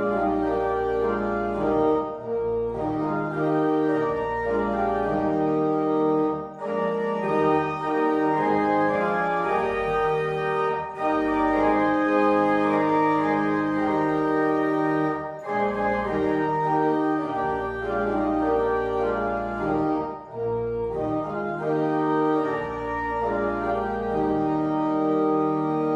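Organ playing slow, sustained chords over long-held low pedal notes, phrase by phrase with brief breaks between phrases.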